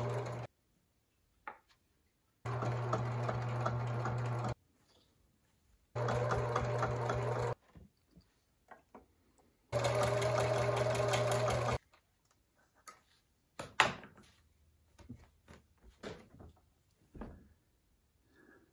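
Electric sewing machine stitching in stop-start runs: it stops just after the start, then runs three more times for about two seconds each with a steady hum. In the last third the machine is quiet and there is one sharp click, then scattered light clicks and knocks.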